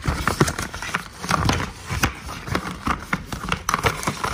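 Cardboard and paper packaging of an Apple Watch Ultra box being handled and pried open by hand: irregular crackling, rustling and light tapping throughout.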